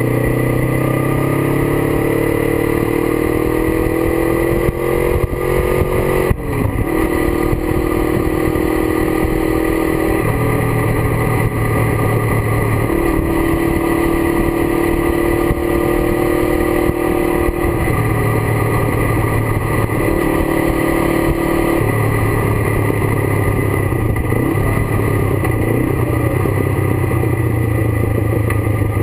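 Kawasaki GPZ 500's parallel-twin engine under way, with wind noise. The revs climb for about six seconds, then drop at a gear change, and after that the engine holds fairly steady revs, its note shifting every few seconds as the throttle opens and closes.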